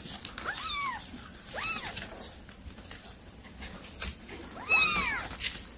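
Cats meowing: a few short, high meows that rise and fall in pitch, the loudest near the end with several calls overlapping. A sharp tap about four seconds in.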